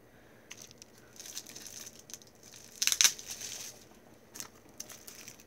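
Crinkling and rustling of the wrapping being pulled off a small perfume oil bottle, in uneven handling bursts with the loudest crackle about three seconds in.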